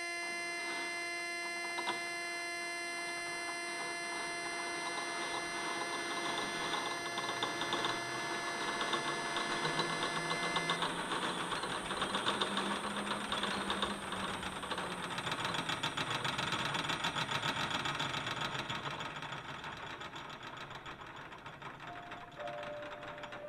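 Contemporary piece for piano and live electronics: a held chord of several steady tones, which about ten seconds in gives way to a dense, fast-pulsing stutter that swells and then fades, with a few short notes near the end.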